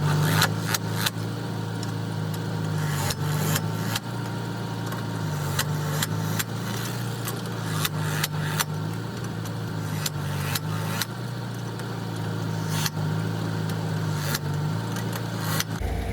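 Metal tools clinking and tapping during wheel work, many short sharp clicks, over a steady low hum.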